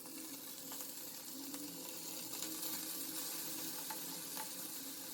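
Marinated potato pieces shallow-frying in a little oil in a pan on a medium flame: a steady sizzle with a few light clicks.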